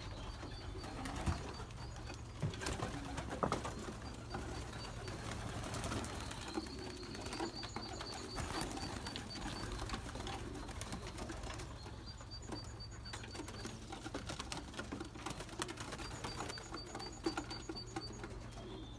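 Pigeons cooing in the loft, with scattered short clicks and scuffs over a low steady hum.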